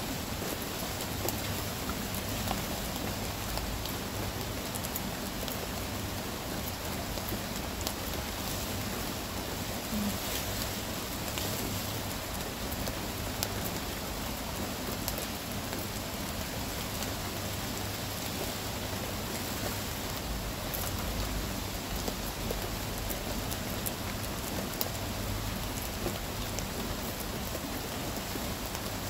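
Steady rain falling, a continuous hiss with scattered ticks of individual drops.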